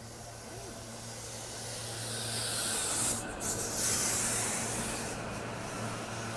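SEPTA Silverliner V electric multiple-unit train running alongside the platform: a rushing wheel-on-rail noise that builds as the cars come close, loudest about three to four seconds in, over a steady low hum.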